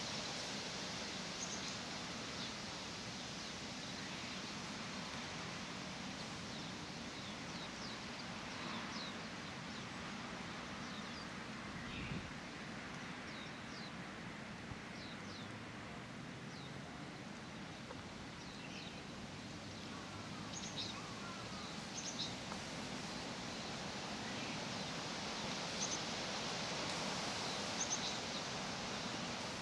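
Leaves rustling steadily in the wind, with small songbirds giving short, high chirps here and there, more of them toward the end.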